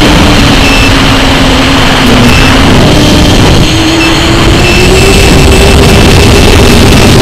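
Electric motor of an FPV model aircraft running, heard loud on the onboard camera's microphone: a steady motor whine over heavy wind rush. The whine dips slightly in pitch, then climbs gradually through the second half.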